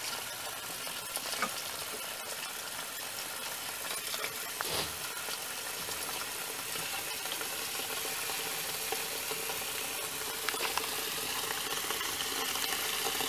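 Water from a kitchen tap running in a steady stream into a metal cooking pot, filling it to cover the meat, with a couple of light knocks against the pot.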